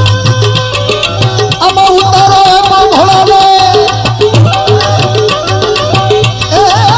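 Instrumental passage of a live devotional bhajan: hand drums keep a steady rhythm under a held, ornamented melody line.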